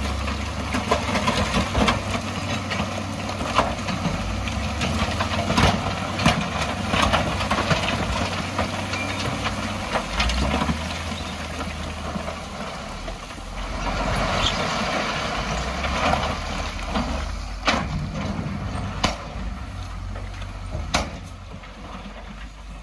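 Heavy diesel construction machinery running under load, with scattered sharp knocks and the clatter of stones being moved and dumped.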